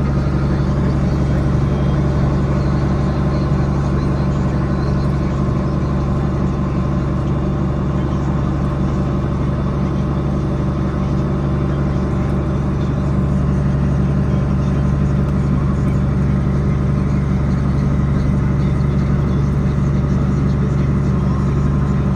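John Deere 9670 combine running steadily while harvesting grain sorghum: a constant machine hum with a low drone and a faint steady whine.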